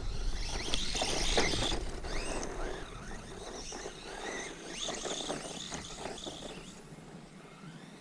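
Brushless electric motor of a 1/16-scale RC desert truck whining up and down in pitch with repeated bursts of throttle, over gritty crackling from the tyres on rough sandy ground. The sound is loudest in the first two seconds and fades as the truck moves away.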